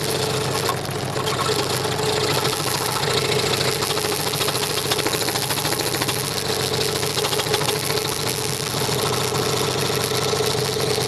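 Scroll saw running steadily as its blade cuts out a curved letter shape, a fast, even chatter of blade strokes with a steady hum underneath.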